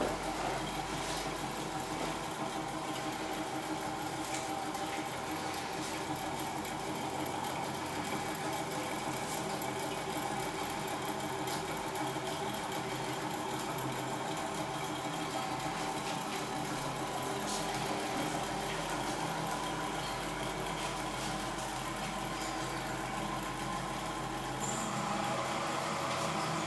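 Stirling engine running steadily, a continuous even mechanical whirr.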